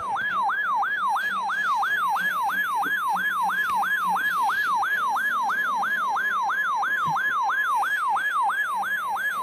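Weather-alert siren alarm: a loud, fast-repeating siren sweep, nearly three whoops a second, over the steady 1050 Hz NOAA Weather Radio warning tone, announcing a flood warning.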